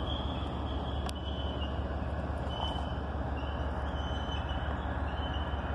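CSX diesel-electric locomotives (an AC4400CW and an ET44AH) heard at a distance as the ballast train approaches: a steady low rumble. Faint high-pitched squeals come and go over it.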